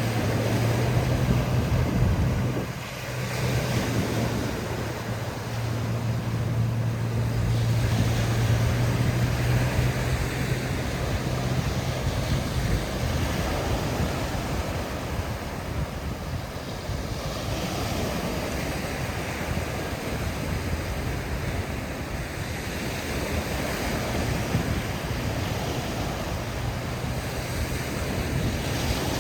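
Sea waves breaking and washing up on the beach in slow repeated surges, with wind buffeting the microphone. A steady low hum runs underneath, strongest in the first ten seconds or so.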